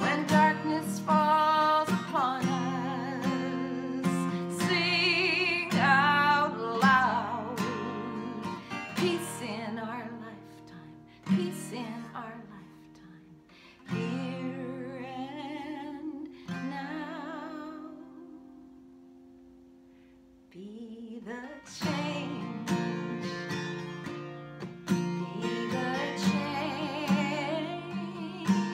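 A woman singing to her own strummed Takamine acoustic guitar. Partway through, a chord is left to ring out and fade almost to nothing before the strumming and singing start again.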